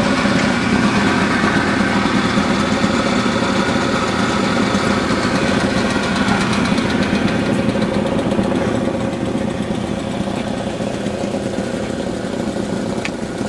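Small two-stroke moped engine idling steadily, easing off a little in the second half.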